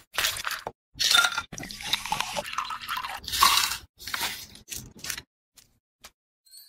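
Kiwi being mashed with a stainless-steel muddler in a glass, then shaved ice spooned in, heard as a run of short wet squishing and crunching bursts. Near the end the sound thins to a few faint soft clicks.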